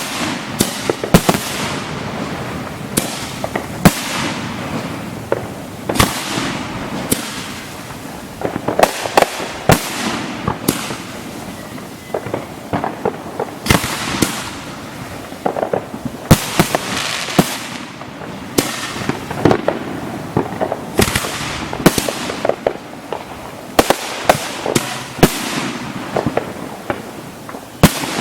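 Professional fireworks display heard close to the firing site: a steady run of sharp booms from aerial shells, several a second in the busiest stretches, over continuous crackling and hissing.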